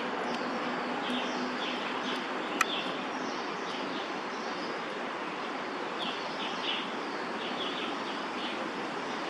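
Small birds chirping in short repeated clusters over a steady hiss of distant city traffic, with one sharp click about two and a half seconds in.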